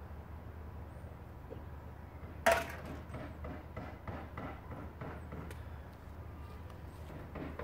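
A single sharp knock about two and a half seconds in, followed by a run of fainter, irregular knocks, over a steady low rumble.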